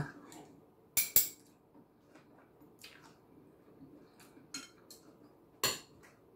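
Metal spoon and fork clinking and scraping against a white ceramic soup bowl while eating. There are two sharp clinks about a second in, fainter taps after them, and a louder clink near the end.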